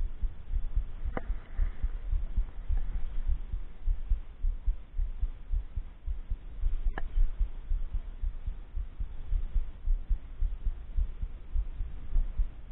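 Wind buffeting the camera's microphone in low, gusting rumbles, with two sharp clicks, one about a second in and one about seven seconds in.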